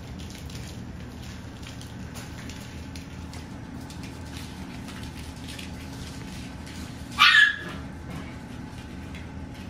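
Saluki puppies at play, with faint light ticks of paws on the floor over a steady low hum, and one short, high yelp about seven seconds in.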